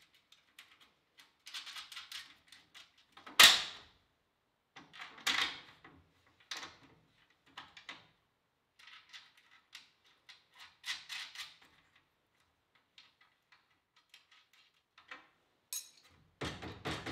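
Metal attic ladder parts being handled and fitted by hand: scattered clanks, clicks and rattles, the loudest a sharp clank about three and a half seconds in.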